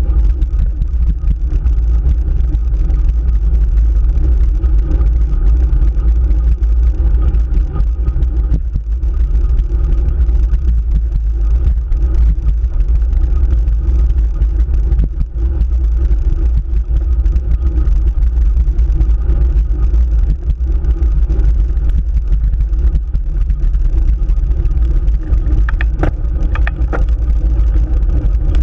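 Steady wind rumble on a bicycle-mounted camera's microphone, mixed with the tyre and road noise of a road bike rolling along. A few brief sharp sounds come about 26 seconds in.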